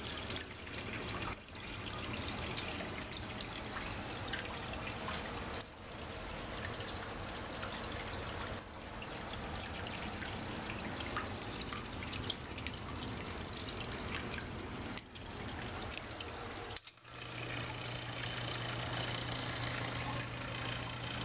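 Water trickling and splashing steadily into a flooded basement sump pit. A steady low hum gets louder about three-quarters of the way through.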